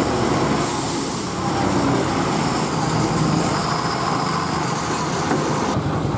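Heavy Ashok Leyland multi-axle lorry's diesel engine running steadily as the loaded truck crawls over a rutted mud road, with a brief high hiss about a second in.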